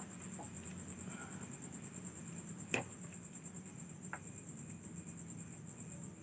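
Cricket chirping steadily, a high trill pulsing several times a second, over a faint low hum. A single sharp click sounds about three seconds in.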